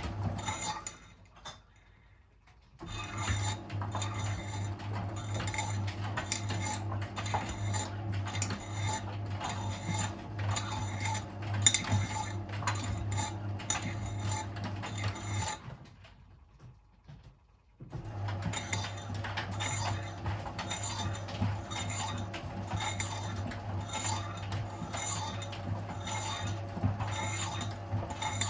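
Miele WS 5405 front-loading washing machine in its main wash: the drum motor hums while the load tumbles with regular clinks and knocks. The drum stops twice for about two seconds, the pauses of the wash rhythm between turns.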